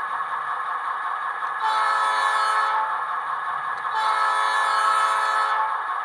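The sound decoder of a ScaleTrains Southern Pacific SD38-2 model locomotive sounds its multi-chime diesel horn twice, a short blast and then a longer one, over a steady background noise.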